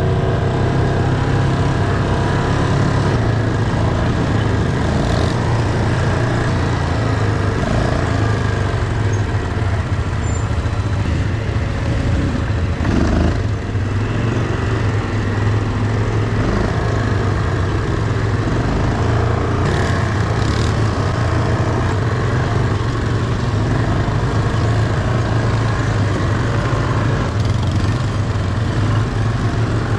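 ATV engine running steadily while being ridden, a continuous low drone.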